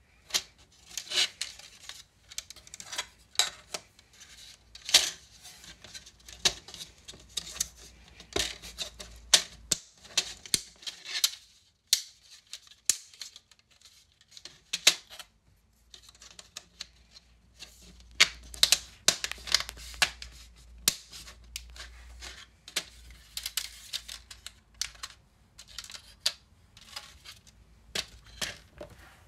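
3D-printed plastic photo frame parts being handled and snapped together: many short, irregular clicks and taps of hard plastic, with a brief lull about halfway through.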